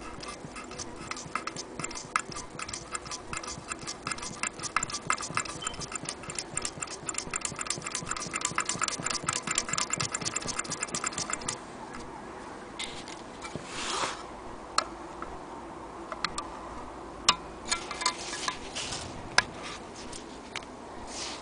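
Antique Willcox & Gibbs chain-stitch sewing machine stitching through denim: a rapid, even clicking of its needle mechanism for about eleven seconds, then it stops. A few scattered single clicks and short noises follow.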